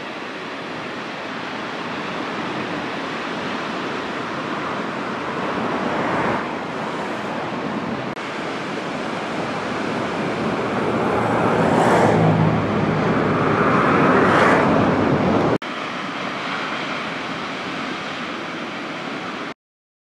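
Ocean waves breaking and washing in as a steady rushing noise that swells louder twice past the middle. The sound stops suddenly just before the end.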